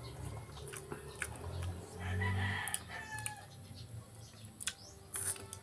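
Small clicks and smacks of eating with the hands, with a rooster crowing in the background about two seconds in.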